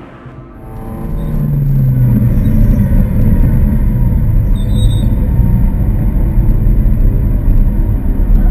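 A car engine running with a loud, low rumble, swelling in over the first couple of seconds, holding steady, then cutting off abruptly at the end.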